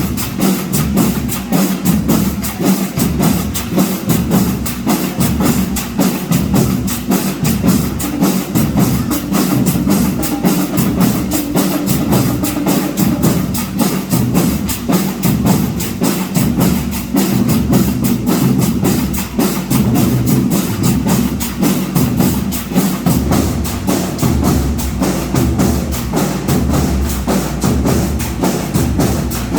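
Marching band drumline playing a fast, even rhythm: a dense run of crisp drum strokes over a regular low bass-drum pulse.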